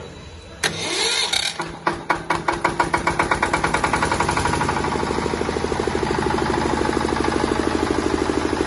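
A single-cylinder diesel generator engine starting: a sudden burst of cranking noise, then separate firing beats that come quicker and quicker until, after about three seconds, it settles into a steady, even running beat.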